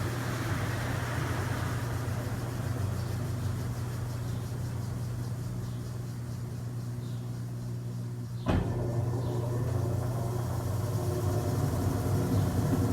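Consul washing machine running steadily on its replacement motor, a low, even hum. The old motor had a loose pulley shaft. There is a single knock about eight and a half seconds in, and after it the hum runs slightly louder.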